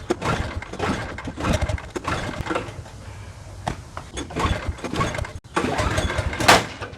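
Snowblower engine being cranked over with its recoil pull-starter, several rough mechanical pulls in a row, the loudest near the end. The engine never catches or runs: it won't start after summer storage on old gas.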